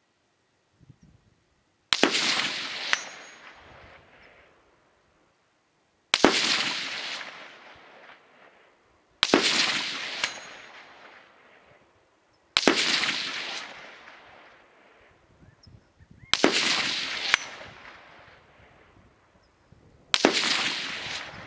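Six single shots from an AR-15 rifle with its adjustable gas block set 2.75 turns from closed, fired every three to four seconds. Each shot has a long echo that dies away over about two seconds. About a second after some shots comes a sharp metallic ping, the bullet striking the steel target plate.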